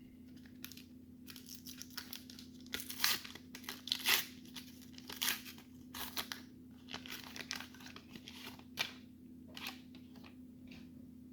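A 1990 Upper Deck baseball card pack wrapper being torn open and crinkled by hand: a run of irregular short rips and crackles.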